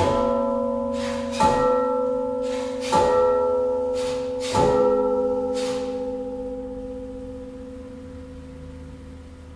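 A slow series of struck, bell-like notes about a second and a half apart, each with a sharp attack and a long ring of several overtones. The strikes stop around the middle and the last ringing fades away.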